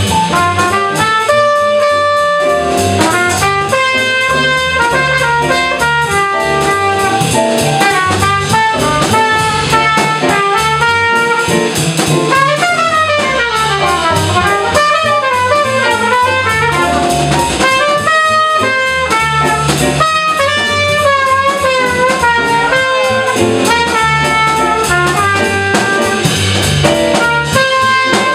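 Small jazz combo playing in swing feel: a trumpet solos with fast runs up and down, over upright bass, electric keyboard and drum kit.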